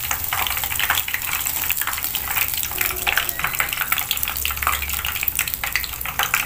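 Hot oil sizzling with dense, rapid crackling around battered tempe mendoan rolls as they are lifted out of it on a slotted skimmer to drain.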